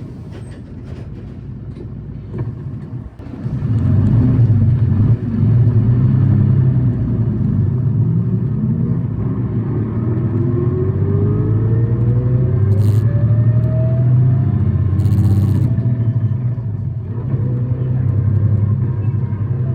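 City bus engine, heard from on board, pulling away: after a quieter stretch the engine comes up hard about three seconds in and runs at high revs, with a whine that climbs steadily in pitch. Two short hisses come near the middle, and the engine eases briefly before pulling again. The bus is one singled out for an unusual noise.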